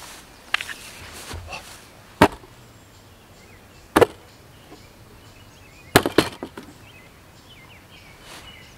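A few sharp, loud knocks and clacks: one about two seconds in, one at four seconds and a quick cluster of several around six seconds. Faint bird chirps sound between them.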